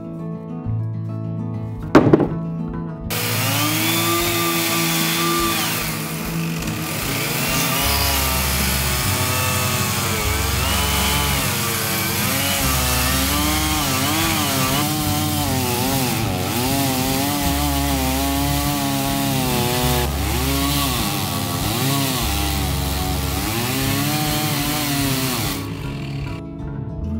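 A power tool cutting into wood, starting about three seconds in and stopping a couple of seconds before the end, its pitch dipping and rising over and over. A sharp knock comes just before it, and background music plays underneath.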